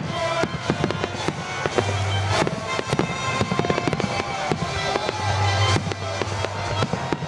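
Aerial firework shells bursting in quick succession: repeated sharp bangs and crackle, with music playing along.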